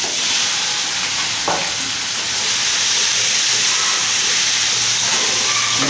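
Chicken with ginger-garlic paste sizzling steadily in hot oil in an aluminium karahi, with one sharp knock about a second and a half in.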